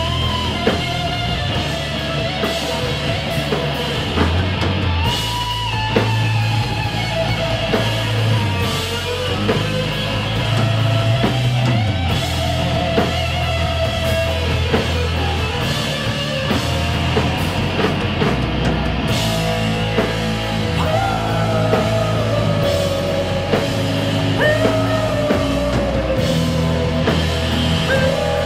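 Live rock band playing loud: a distorted electric guitar plays a long, bending lead line over drums and crashing cymbals, with no singing.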